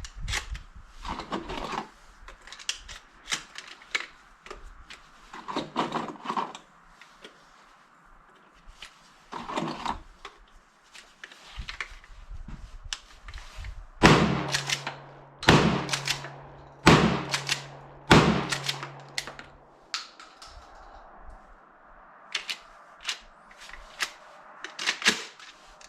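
Repeated clicks and clacks of a Maverick 88 pump-action shotgun being handled and loaded. About halfway through come four louder sharp bangs, roughly a second and a half apart.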